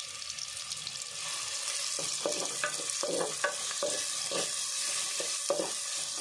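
Sliced onions sizzling in hot coconut oil in a clay pot, a steady hiss. From about two seconds in, a wooden spatula stirs them, with a run of short scrapes and knocks against the pot.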